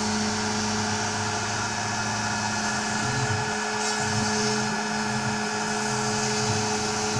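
OneFinity CNC router's spindle motor running steadily as the machine cuts foam board, a high hum over a hiss, with lower motor notes shifting as it moves.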